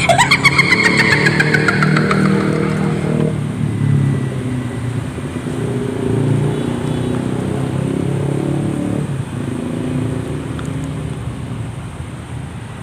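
Motorcycle engine catching with a sudden rattling burst and a falling whine, then running steadily and slowly fading away.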